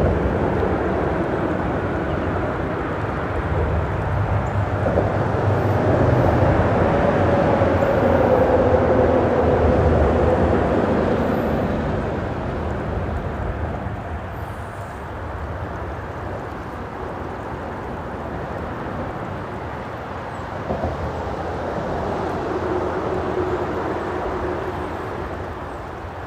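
Freeway traffic on the bridge overhead: a continuous rush of passing vehicles that swells about six to eleven seconds in with a steady tyre whine, eases off, then swells again with another whine near the end.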